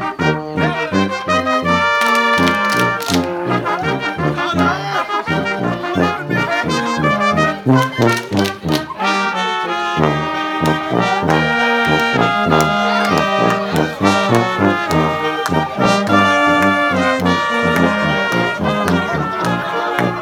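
Brass-band polka music with a steady, bouncing beat: held brass notes over regularly repeating bass notes.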